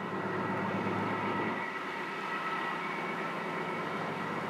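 Harbour tug's diesel engines running under way as it passes, a steady low drone with steady higher whining tones over it.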